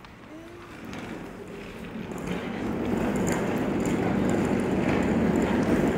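A passing vehicle approaching, its noise growing steadily louder over a few seconds.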